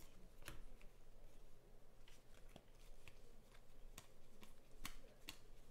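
Faint, light clicks and slides of Panini Prizm football cards being flicked one at a time off a stack in the hands, about ten soft ticks spread unevenly, over a low steady hum.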